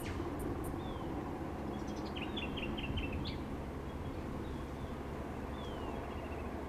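Birds calling over a steady low rumble: a few short descending whistles, and a quick run of chirping notes about two to three seconds in.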